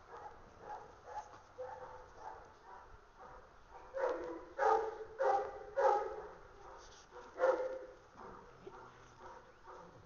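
Dogs at play yipping with short, light calls, then barking: four loud barks in quick succession about four seconds in, and one more about seven and a half seconds in.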